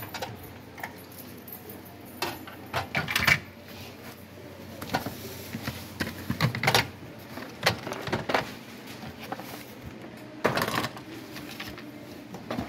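Hands rummaging through a plastic crate of old toys and cardboard boxes: irregular knocks, clatters and rustles as items are moved and shifted against each other, with clusters of louder knocks at about two to three seconds, around six to seven seconds and near ten and a half seconds.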